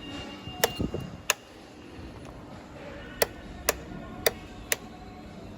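A series of six sharp, crisp clicks at uneven spacing over a low steady background hum.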